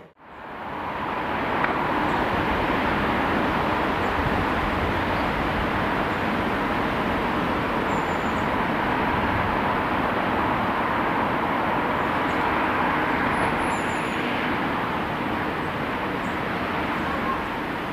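Freight train passing, a steady rumble and rattle of wagons on the rails with no clear engine note.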